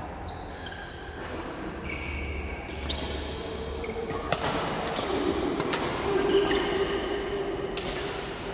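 Shoes squeaking in short chirps on a badminton court floor during a rally, with sharp racket hits on the shuttlecock. The loudest hit comes about four seconds in, as a player jumps into an overhead smash, and another follows about a second and a half later.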